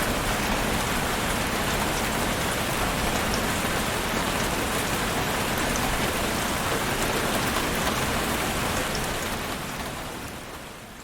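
Heavy rain falling steadily on surfaces, a dense even hiss with scattered individual drop ticks. It fades out over the last couple of seconds.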